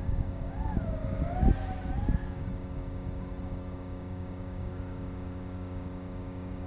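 FPV quadcopter's motors whining, the pitch wavering up and down over gusty wind buffeting in the first two seconds, then settling to a steady hum.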